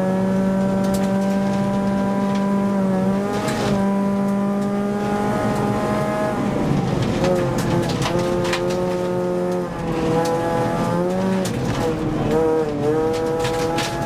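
Rally car engine pulling hard at high revs, heard from inside the cabin; the engine note dips and climbs back several times. Gravel pings and rattles against the car's underside throughout.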